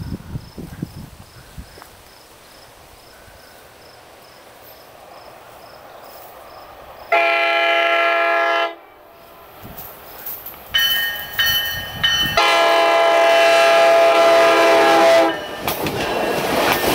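GO Transit commuter train approaching and sounding its Nathan K5LA multi-chime air horn: a blast about seven seconds in, then a longer one from about eleven seconds that holds for several seconds and is the loudest thing here. Near the end the train passes close by with a rushing rumble of wheels on the track, after a faint rising rumble of its approach.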